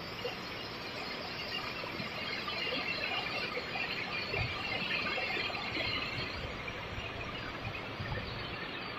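Steady rain falling, an even hiss that grows slightly louder in the middle.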